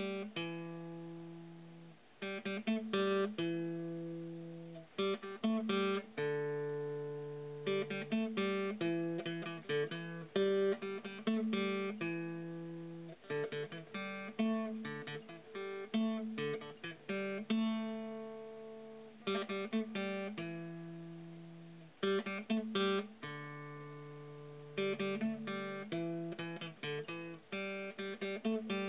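Acoustic guitar music, with chords strummed and picked in quick clusters about every two seconds, each left ringing and fading.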